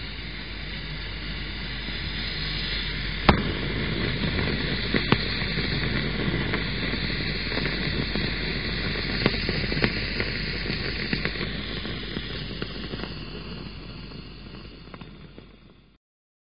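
A small piece of lithium reacting with water: a steady fizzing hiss that swells and then fades, with a few sharp pops, the loudest about three seconds in. The sound cuts off near the end.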